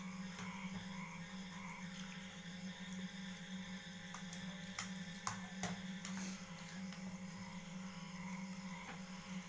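Spoons tapping and scraping in plastic bowls as two people eat, with a few sharp clicks about halfway through, over a steady low electrical hum.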